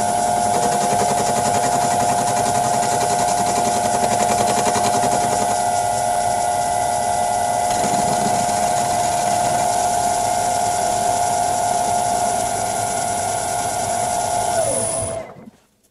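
Vintage Karger metal lathe running at speed with a steady whine while a carbide insert takes a facing cut across a round workpiece in the chuck. Near the end the lathe is switched off and the sound cuts off.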